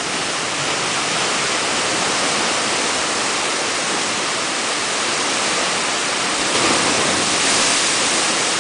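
Pacific Ocean surf churning and rushing through a narrow rock inlet between cliffs, a steady roar of foaming water. It swells louder about three-quarters of the way through as a wave surges in.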